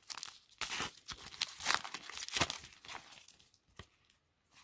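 A trading-card pack wrapper being torn open and crinkled in the hands, a run of papery rustling and tearing that dies down after about three seconds to a few light ticks.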